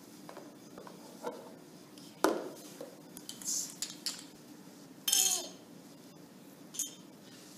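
Small hard plastic test pieces clicking and clattering as they are handled and set down: several separate clinks, the sharpest about two seconds in, and a short rattle about five seconds in.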